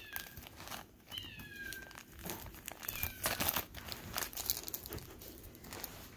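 Clear plastic jewelry bag crinkling and crackling as fingers work at opening it. A kitten mews a few times in short, high, falling cries.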